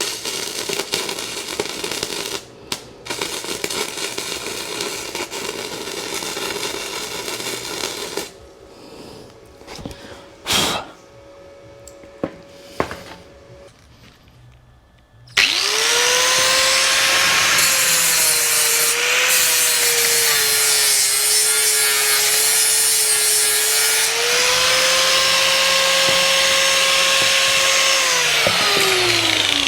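An angle grinder starts about halfway through and grinds on the steel flat-bar bracket, its whine sagging in pitch under load and recovering as the load eases, then winding down at the end. Before it come about eight seconds of steady crackling hiss and a few sharp knocks.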